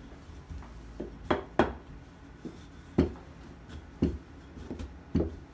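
Wooden rolling pin rolled back and forth over dough circles on a countertop, knocking against the counter about seven times at irregular intervals.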